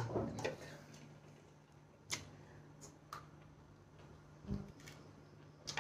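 Faint eating sounds: a scattering of soft clicks and smacks from chewing and from fingers picking food off plates, with a soft low thump about four and a half seconds in, over a low steady hum.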